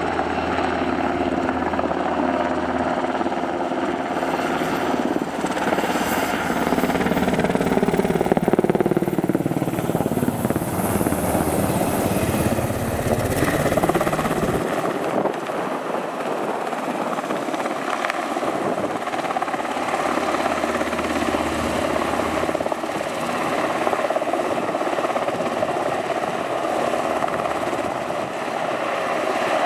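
Sikorsky S-70 Black Hawk twin-turboshaft helicopter flying low overhead, its rotor and turbine noise sliding down in pitch as it passes. About halfway through, the sound changes abruptly to the same helicopter hovering steadily.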